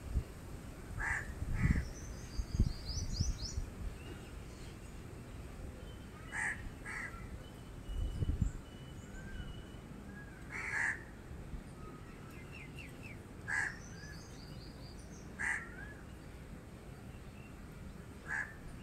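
Crows cawing, single short caws every few seconds, over the chirps, trills and whistles of smaller birds. A few low rumbles come in the first few seconds and again about eight seconds in.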